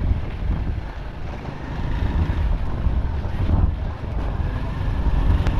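Wind buffeting the microphone on a moving motorcycle, with the bike's engine running beneath it; the level surges and dips in gusts.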